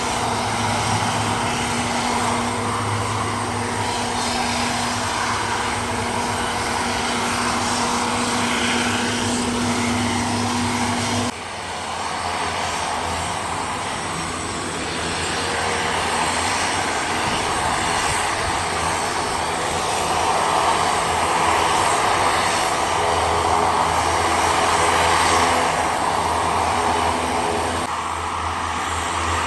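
Twin turboprop engines of a small commuter plane running steadily on the ground, a constant propeller drone with a hum. The pitch mix changes abruptly about eleven seconds in.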